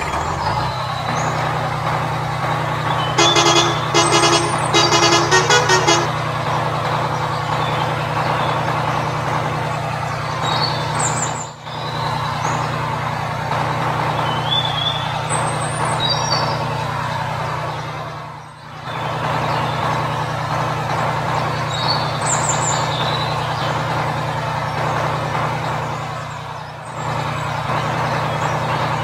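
Truck engine running steadily, with a horn tooting in a quick series of short blasts about three to six seconds in; the engine sound dips briefly three times.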